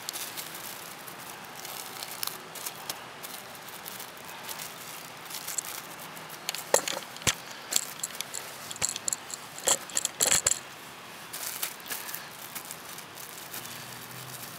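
Handling noise: a scatter of small clicks, knocks and rattles from things being moved about, bunched together between about six and eleven seconds in.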